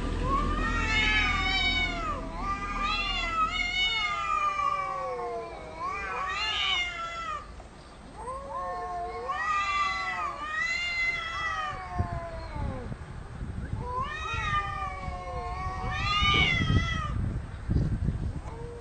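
Two cats, a seal-point Siamese-type and a black-and-white tuxedo, caterwauling at each other in a territorial standoff: about six long, wavering yowls that rise and fall in pitch, with short gaps between them, the loudest near the end.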